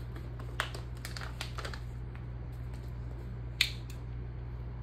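Light clicks and crackles of a plastic water bottle being handled and opened, with one sharper click about three and a half seconds in, over a faint steady low hum.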